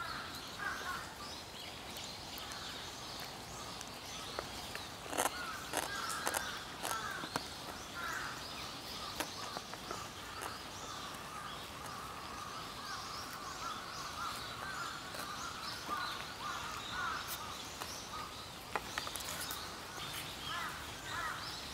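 Outdoor bird chorus: many birds calling and chattering without a break. A few sharp clicks stand out about five to seven seconds in and again near the end.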